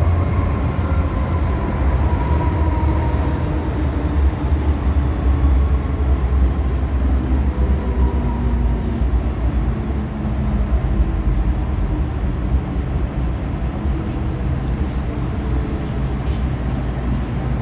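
Interior running noise of an MTR M-Train electric multiple unit pulling into a station: a steady low rumble of wheels on track, with a faint motor whine that falls slightly in pitch over the first few seconds as the train slows.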